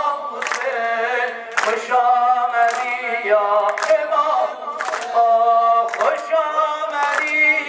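A male maddah singing a Persian devotional lament (maddahi) into a microphone, with other voices singing along. The singing is marked by a sharp beat of hands striking in time, about once a second.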